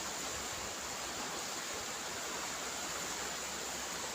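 Steady outdoor background noise: an even rushing hiss with a thin, high, steady whine above it, unchanging throughout.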